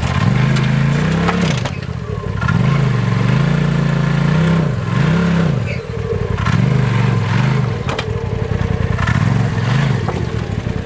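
Off-road vehicle engine revving hard in repeated surges, the pitch climbing and dropping about five times. A few sharp knocks and clatter, about a second and a half in and again near eight seconds, like metal being hit or scraped.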